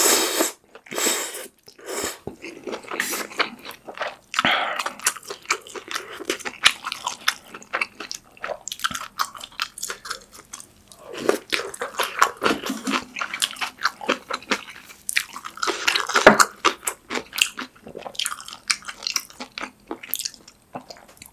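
Close-miked eating: a loud slurp of ramen noodles in the first second or so, then wet chewing with crunches of kimchi stew and noodles.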